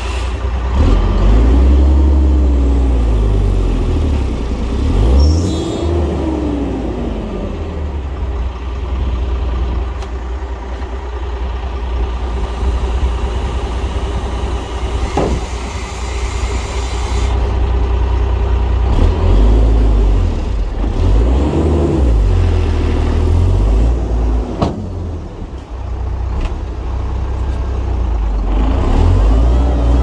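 Heavy diesel earthmoving machinery at work: a big diesel engine running under load, its revs rising and falling several times, with a single sharp knock about halfway through.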